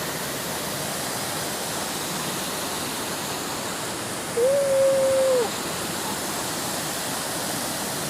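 Waterfall rushing steadily. About halfway through, a single clear whistle-like note, held level for about a second, rises above it.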